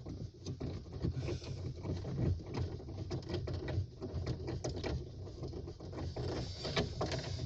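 A screw being driven into the car's dashboard trim with a hand screwdriver: a dense, uneven run of small clicks and scrapes.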